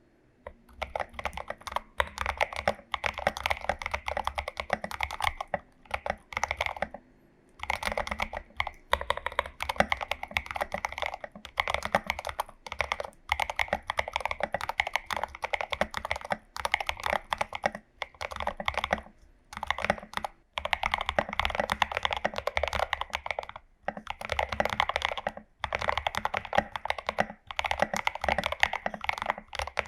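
Typing on a Glorious GMMK Pro mechanical keyboard fitted with lubed and filmed Prevail Epsilon switches, lubed stabilisers and SA-profile keycaps: fast runs of keystrokes in bursts of a few seconds, broken by short pauses.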